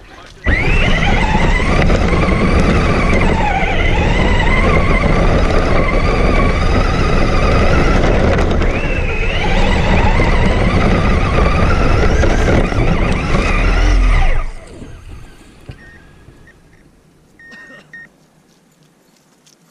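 RC car motor running hard, its whine rising and falling in pitch with the throttle for about fourteen seconds, then stopping abruptly.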